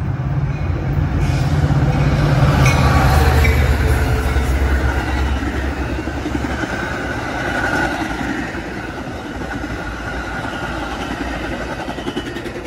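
Metra diesel commuter train running through the station at speed without stopping. The locomotive's low engine drone is loudest a few seconds in and drops away about halfway, leaving the rumble and clatter of the bilevel passenger cars' wheels on the rails, easing near the end.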